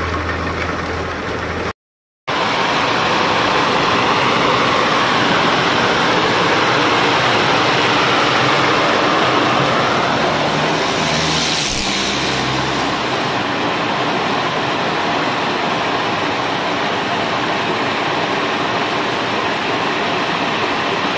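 Kadıoğlu walnut hulling machine running, churning green-husked walnuts as it strips the hulls, a dense steady rushing noise. The sound cuts out completely for a moment about two seconds in, and there is a brief brighter swell about halfway through.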